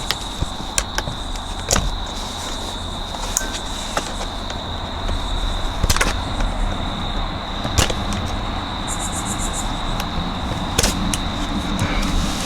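Flathead screwdriver prying at a stubborn plastic sun visor mounting clip: scattered sharp plastic clicks and scrapes, a few louder snaps about 2, 6, 8 and 11 seconds in, over a steady low hum and a thin steady high whine.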